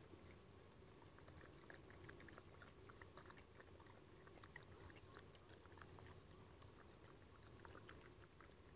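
Dogs eating: faint chewing, heard as many small irregular clicks.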